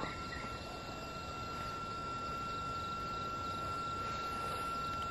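Steady night insect chorus, heard as one unbroken high tone over a faint even hiss.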